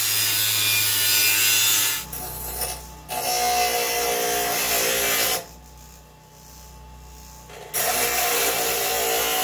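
Grinding steel with power grinders, each pass a loud, even, harsh noise. First an angle grinder for about two seconds. Then a bench grinder wheel in two stretches, with a quieter steady motor hum between them.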